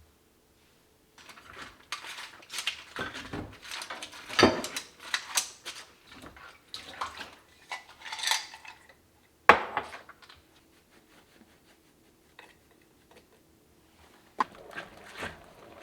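Dishes and cutlery clattering and clinking as kitchenware is handled, with one sharp knock about nine seconds in. After a quiet stretch the clatter starts again near the end.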